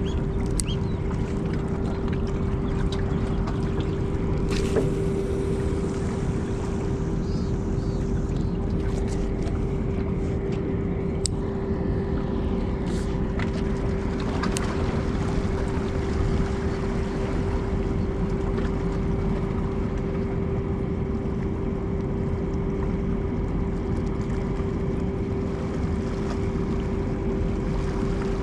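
Steady drone of a ship's engine, one constant hum at a fixed pitch, over wind and water noise, with a few faint clicks.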